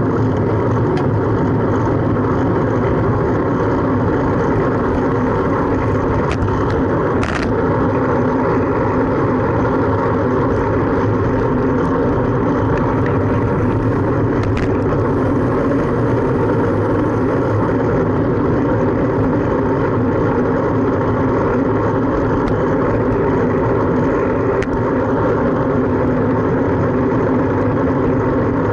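Steady wind and road noise on a bike-mounted camera riding through city traffic. There is a sharp click about seven seconds in and a fainter one about halfway through.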